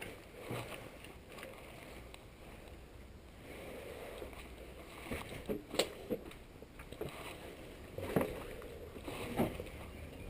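Irregular footsteps, scuffs and knocks as people move about, with a few sharper knocks around the middle and near the end.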